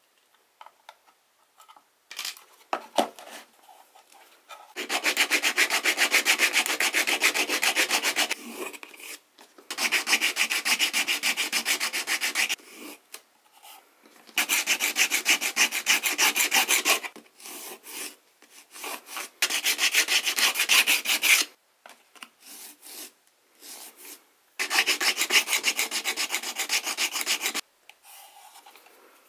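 Rapid rasping strokes of hand filing or sanding worked back and forth in five bursts of about three seconds each, with short pauses and a few light clicks between them.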